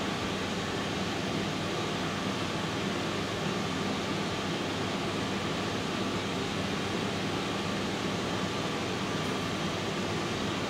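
Steady room ventilation noise: an even hiss with a faint low hum, unchanging throughout.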